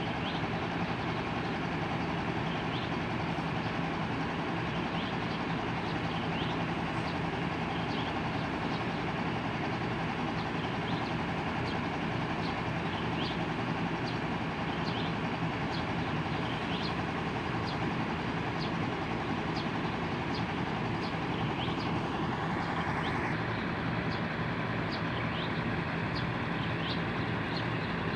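A vehicle engine running steadily with a low hum, with short high chirps recurring irregularly over it.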